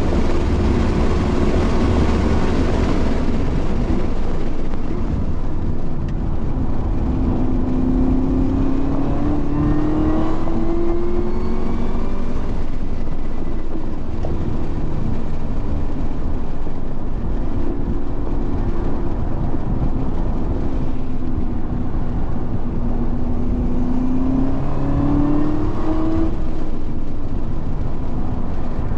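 Race car engine heard onboard under hard track driving, running loudly and steadily, with two long rising pulls in pitch as it accelerates, about a third of the way in and again near the end.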